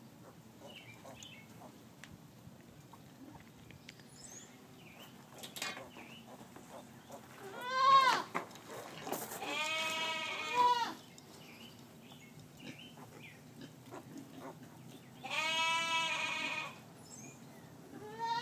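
Newborn piglets, not even a day old, squealing: several short high-pitched cries, each rising and falling in pitch, the loudest about eight seconds in and the last near the end.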